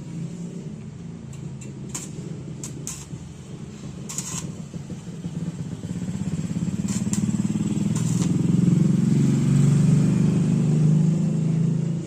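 A motor running with a steady low hum that grows louder after about six seconds, with a few sharp ticks along the way.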